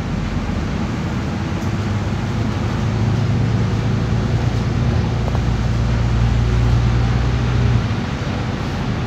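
Solaris Urbino 12 IV city bus heard from inside while driving on a wet road: steady engine drone over tyre hiss. The engine note drops away near the end.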